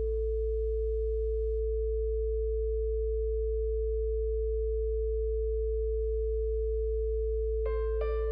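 Steady 55 Hz sine tone with a second steady, higher pure tone held over it, a sound-therapy frequency track. Soft keyboard notes come in near the end.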